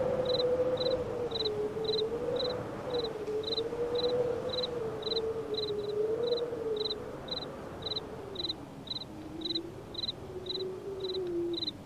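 Crickets chirping in an even rhythm, about two chirps a second, over a single slowly wavering tone that drifts up and down in pitch and sinks lower near the end.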